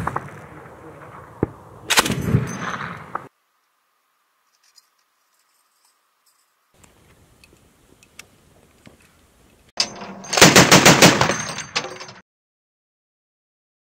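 NSV 12.7 mm heavy machine gun firing. Heavy shots and a short burst ring out in the first three seconds. After a few near-quiet seconds, a short rapid burst comes near the end.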